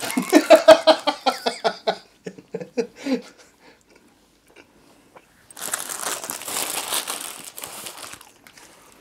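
Paper hamburger wrapper being handled and crinkled as a burger is unwrapped: crackly rustling at the start, a few scattered crinkles, then a longer, louder stretch of crinkling paper in the second half.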